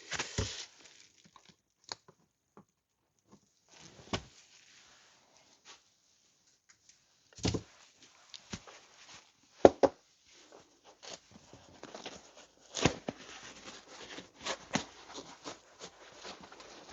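Scattered sharp clicks and knocks of a tool prying the last staple out of a motorcycle seat's plastic base. In the last few seconds there is a denser scraping and rustling of the seat being handled.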